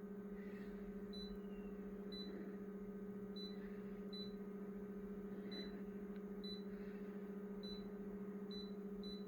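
Konica Minolta photocopier humming steadily, a noise new to the machine that the owner thinks could be a fan, with faint short high ticks about once a second.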